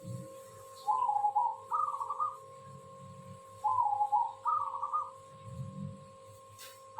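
Zebra dove (perkutut) singing: rapid stuttering coos, a lower phrase then a higher one, repeated twice about three seconds apart. A faint steady hum runs underneath.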